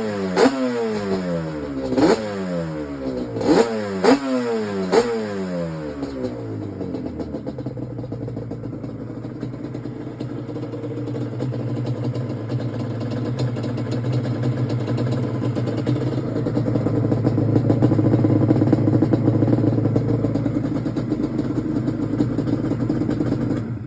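Yamaha Banshee's 350cc twin-cylinder two-stroke engine being blipped: about five quick revs in the first five seconds, each dropping back down. It then runs at a steadier speed that grows gradually louder, loudest near the end.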